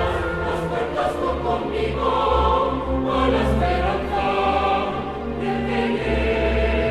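Music with a choir singing held notes over instrumental accompaniment and a steady low bass.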